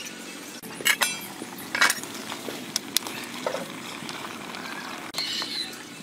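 Metal ladle and lid clinking against a stainless-steel soup pot: two sharp, ringing clinks about a second in and another near two seconds, then lighter taps, over a steady low hiss.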